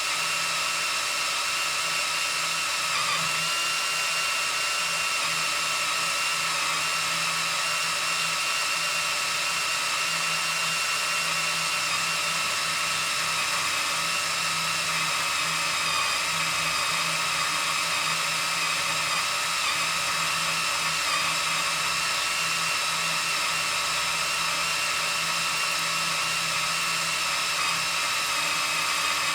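Cordless drill boring into steel: a continuous, steady high whine of the motor and bit cutting metal.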